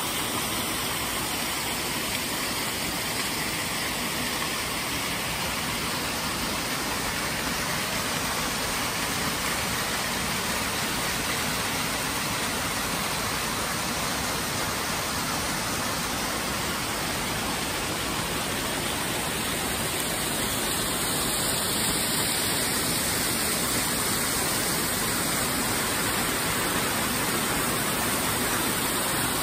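Small creek waterfall spilling over rock ledges: a steady rush of falling water, growing a little louder in the last third.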